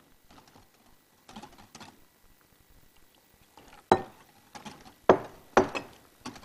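Kitchen utensils and glassware clinking and knocking against bowls and dishes on a counter. It is a handful of separate knocks: a sharp one about four seconds in and two more strong ones about a second later.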